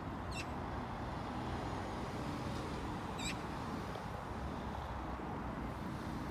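Steady outdoor background rumble with no voices, and two short, high-pitched bird calls about three seconds apart.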